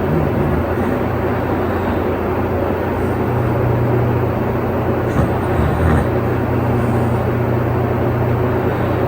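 A steady, loud mechanical drone with a constant low hum.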